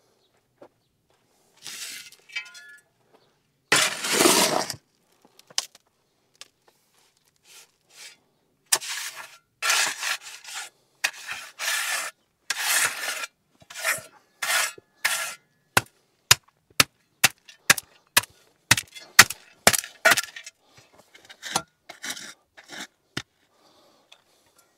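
Steel shovel scraping and chopping into soil and broken concrete rubble in a series of gritty scrapes about half a second each, with a heavier scrape about four seconds in. After the middle, a quick run of sharp knocks takes over.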